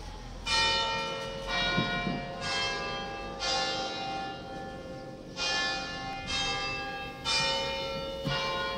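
Church bells ringing: eight strikes, about one a second in two groups of four with a short pause between, bells of different pitch, each ringing on and fading as the next is struck.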